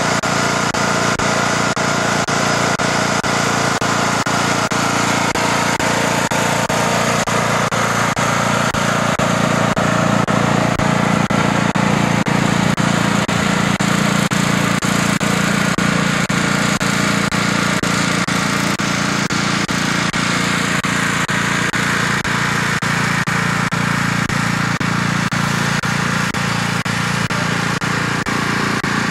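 Riding lawnmower engine running steadily.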